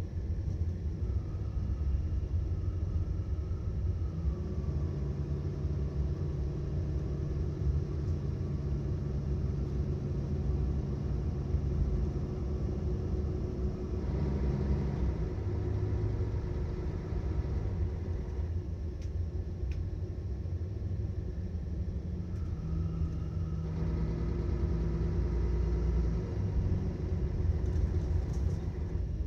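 Mercedes-Benz Citaro O530 city bus engine running, heard from inside the bus as a steady low rumble, its engine note shifting to a new pitch a few times.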